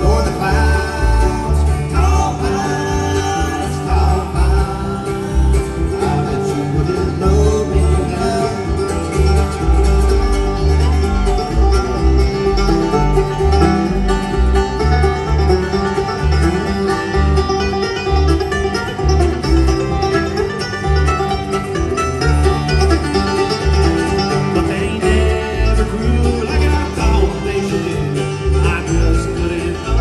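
Live bluegrass band playing: acoustic guitars and upright bass, the bass plucked on a steady beat.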